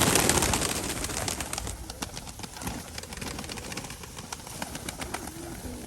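Nikolaev pigeons cooing, with a loud rustling flurry in the first second and many small clicks and taps running through.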